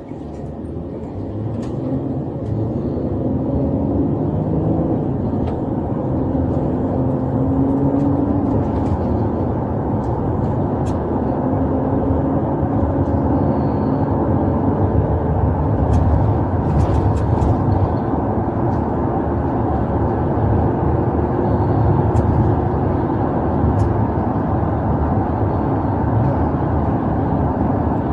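Patrol car driving, heard from inside the cabin: engine and road noise that rise over the first few seconds as the car gets under way, then hold steady, with a few light clicks.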